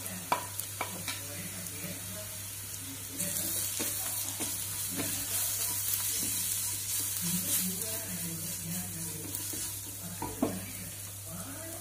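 Sliced mushrooms sizzling in a nonstick wok as they are stirred and turned with a wooden spatula, the sizzle swelling about three seconds in. A few sharp clicks of a metal spoon against the plate and pan as spice powders are tipped in early on, and another click near the end.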